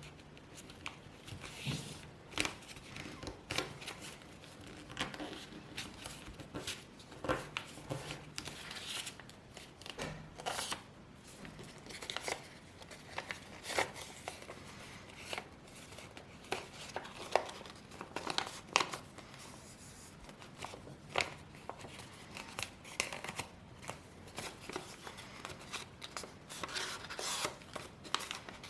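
A sheet of A4 paper being handled, folded and creased by hand, with irregular rustles and sharp crinkling snaps as the folds are pressed flat.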